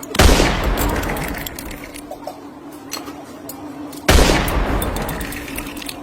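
Two loud blasts about four seconds apart, each sudden and fading away over a second or so, like gunshot or explosion sound effects, over a steady low hum.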